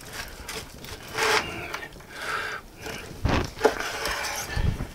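Large knife sawing through smoked brisket on a wooden cutting board, the blade rasping through the crusty bark in a few strokes, with a couple of dull knocks against the board in the second half.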